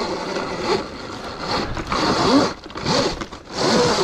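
Sur-Ron X electric dirt bike riding on a dirt single track: the electric motor whines, its pitch rising and falling with speed, over the noise of knobby tyres on dirt and pine needles.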